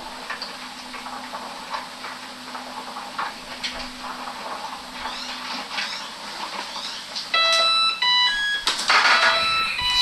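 Maytag Maxima front-load washer finishing its cycle: faint clicks and a low hum that stops about five and a half seconds in, then, about seven seconds in, its end-of-cycle melody of short electronic beep tones plays, signalling that the wash is done.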